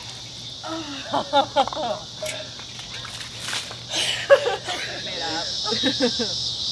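Women laughing and squealing in short bursts, loudest about a second and a half in and again around four seconds, over a steady high-pitched chorus of summer insects.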